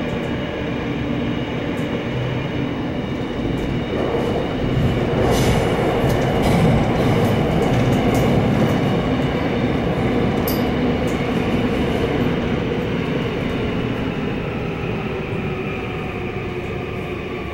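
Seoul Subway Line 9 train running through a tunnel, heard from inside the passenger car: a steady rumble of wheels on rail with a running whine and a few light clicks. It grows louder in the middle, then eases off steadily towards the end as the train slows for the next station.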